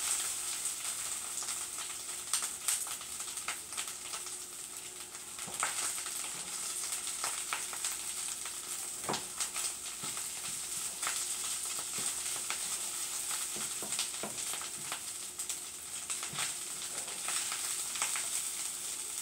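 Corned beef hash sizzling in a frying pan as its oils cook off and it crisps, with repeated scrapes and taps of a wooden spoon stirring it.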